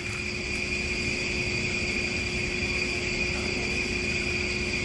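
Steady room tone in a large gymnasium: an even hum with a thin, high-pitched whine running through it.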